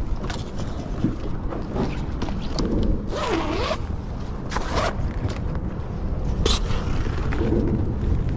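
Zipper of a soft cooler or fish bag being pulled in a few short rasping strokes, the longest about three seconds in, over low wind rumble on the microphone.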